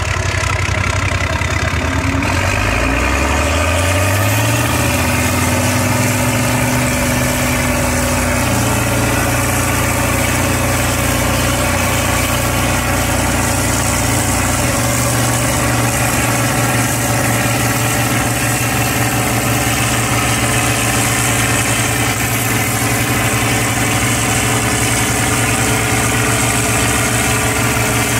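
Antique tractor engine running; its speed rises about three seconds in, then it runs steadily.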